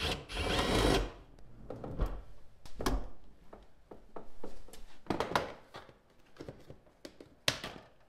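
Cordless drill running for about a second at the driver's seat, with a steady motor whine. After it come scattered knocks and clicks of plastic interior trim being handled.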